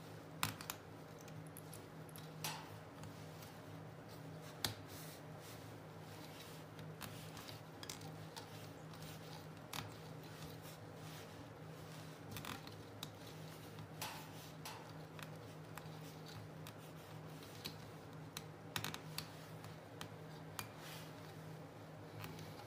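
Faint, scattered small clicks and ticks of thread being wound and hooked around small nails on a string-art board, a few per second at most, over a steady low hum.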